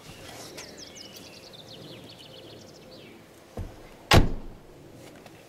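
A bird chirping in a quick run of notes, then about three and a half seconds in a light knock and, half a second later, a loud thump of a car door being shut.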